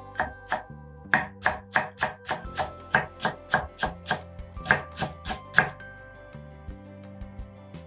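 Chef's knife chopping green onion on a wooden cutting board: a quick run of sharp knocks, about three a second, that stops a little under six seconds in. Soft background music plays underneath.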